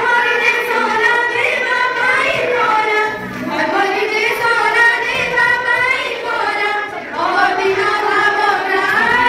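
Young female voices singing a song together in long, held, wavering notes.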